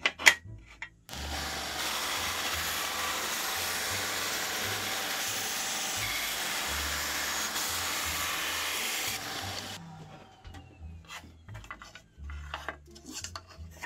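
Skil 3386 benchtop band saw cutting through a block of Gabon ebony, a very hard wood: a steady rasping hiss of the blade in the wood that starts about a second in and stops around nine to ten seconds in. Light knocks and clicks follow as the cut pieces are handled on the saw's cast aluminum table.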